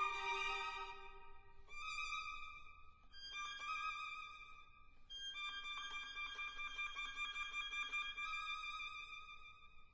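Background music: a slow violin melody of a few long held notes with a slight vibrato.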